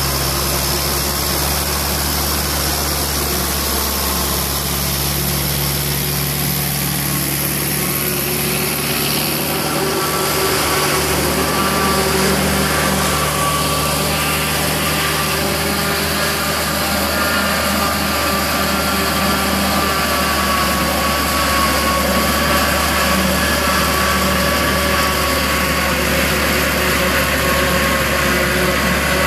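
Case IH 840 tractor's diesel engine pulling a trailed forage harvester chopping maize and blowing it through its spout into a trailer, with a second tractor running alongside. A steady machinery drone, with a high whine joining about a third of the way through.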